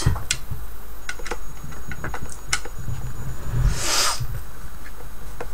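Hands working inside a wooden subwoofer cabinet among its wiring: scattered light clicks and knocks, with a short scrape about four seconds in.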